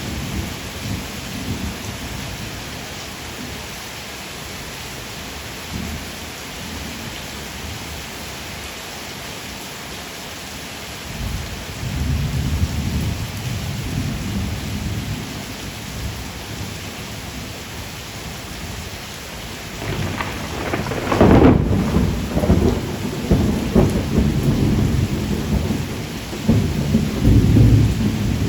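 Steady rain hiss with rolling thunder. A low rumble swells in about 11 seconds in, and the loudest clap comes about 21 seconds in, followed by more rumbling that carries on to the end.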